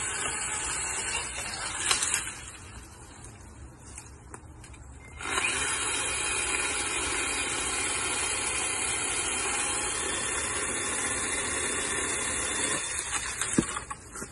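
Powerworks 60V cordless pole saw with a brushed electric motor running, its chain whirring with a steady high hiss while cutting overhead branches. The motor drops off about two seconds in, runs again from about five seconds in, and stops near the end, followed by a single sharp knock.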